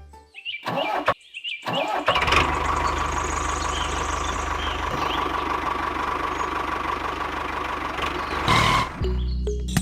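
A small motor starts about two seconds in and runs steadily with a high whine, then stops near the end as music comes back in.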